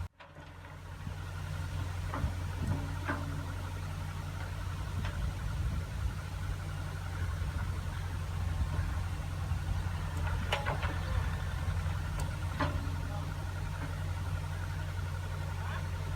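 Diesel engine of heavy farm machinery running steadily at a low hum, with a few sharp knocks or clanks scattered through.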